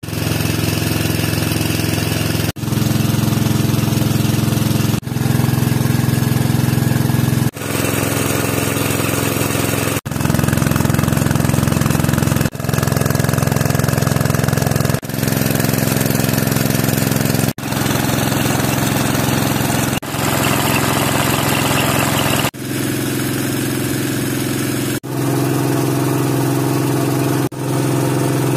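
Small engine of an irrigation water pump running steadily. It comes in a string of short pieces joined by abrupt cuts about every two and a half seconds, its tone shifting a little from piece to piece.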